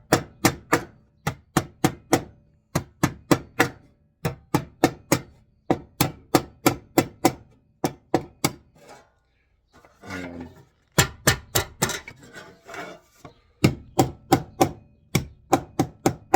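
Hammer striking a sheet of tin roofing on a wooden bench, sharp blows in quick runs of about three to four a second, with a short break a little after the middle.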